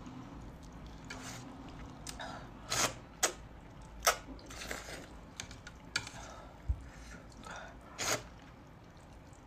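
Close-miked slurping of saucy glass noodles, heard as about half a dozen short, sharp wet slurps and mouth smacks. Softer chewing sounds come in between them.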